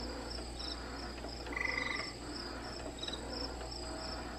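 Even cricket chirping, about three chirps a second, with one short frog-like croak about a second and a half in.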